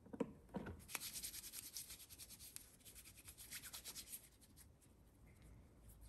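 Hands rubbing together with sanitiser from a pump bottle: a few soft clicks as it is dispensed, then quick, even, faint rubbing strokes that fade out about four and a half seconds in.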